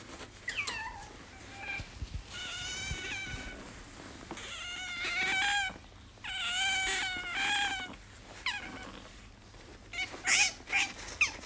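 Asian small-clawed otter calling: several high, wavering whines of about a second each, with short falling chirps before them and after, and a few sharp squeaks near the end.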